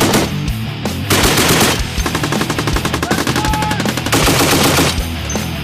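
M2 .50 caliber Browning heavy machine gun firing short bursts of rapid shots, with a burst about a second in and another about four seconds in, over background music.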